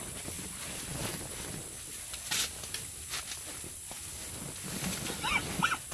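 Open-field ambience: a steady hiss with scattered soft rustles and clicks, and two short chirps near the end.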